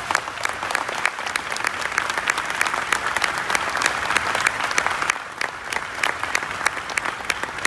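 A large audience applauding: dense, even clapping that holds steady throughout.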